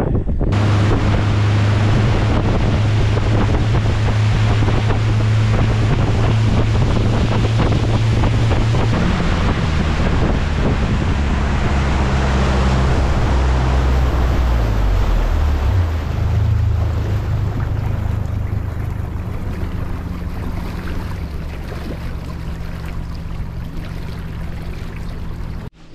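Mercury outboard motor running a boat at speed, with water rushing past the hull and wind on the microphone. A little past halfway the engine note drops as the boat throttles back, and the sound then fades slowly.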